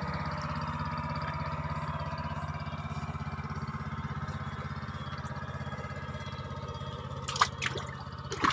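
A steady low motor drone with a fast, even pulse, with sharp water splashes about seven seconds in and again at the very end.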